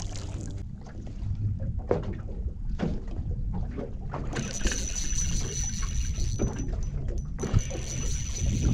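Low wind rumble on the microphone and water noise around a small boat, with a few sharp knocks. A thin, high, steady tone comes in about halfway through.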